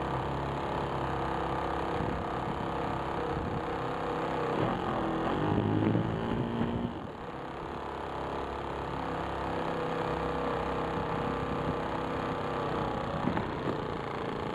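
Radio-controlled model aircraft's motor and propeller heard from the onboard camera, its pitch shifting as the throttle changes while it comes down and rolls on the grass, with wind noise on the microphone. The sound dips briefly about seven seconds in, then runs steadier.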